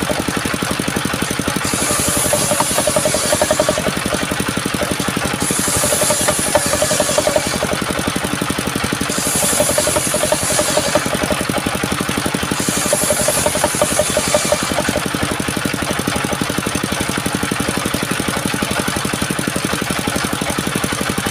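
Engine-driven wood-sawing machine running steadily. A brighter hiss swells for about two seconds, four times at even intervals, then the machine runs on evenly.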